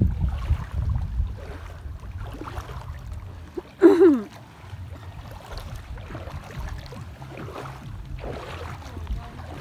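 Wind rumbling on the microphone, heaviest in the first second or so, over the light slosh of shallow seawater. About four seconds in comes a single short, loud call that falls in pitch.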